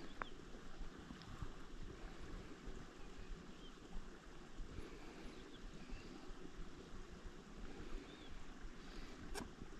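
Faint open-water ambience: quiet water movement and light wind noise, with a few short faint chirps and a single sharp click near the end.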